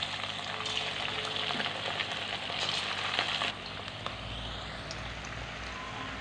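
Cornflour-and-egg-coated chicken pieces deep-frying in hot oil in an aluminium kadai, the oil sizzling as more pieces go in. About three and a half seconds in the sizzle drops suddenly to a softer, steady level.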